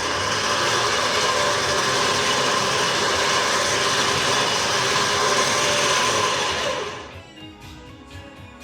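A VRS 12,500 lb electric winch's motor running under test, a steady mechanical whir and grind that winds down and stops about seven seconds in.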